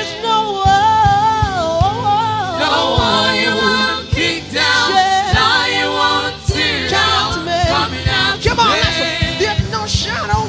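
Live worship song from a church praise team: singers with microphones hold and slide through long notes over backing voices, with a band keeping a steady drumbeat underneath.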